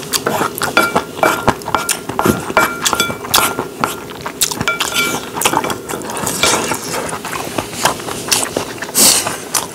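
Wooden spoon knocking and scraping against a ceramic bowl as rice is mixed with spicy stir-fried octopus: a quick string of clicks and clinks, with brief ringing from the bowl.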